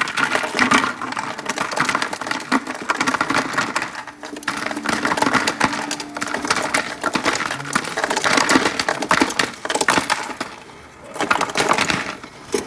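Ice cubes clattering and crunching as they are scooped and dropped into a container, in repeated bursts with short lulls.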